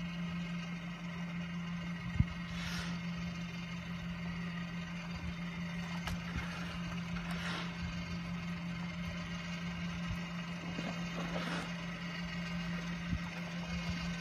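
HDPE geomembrane welding machine running with a steady hum, with a faint whooshing swell about every four seconds and one sharp click about two seconds in.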